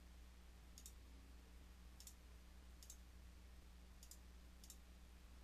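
Near silence: a faint steady low hum with five faint, sharp high clicks spaced roughly a second apart.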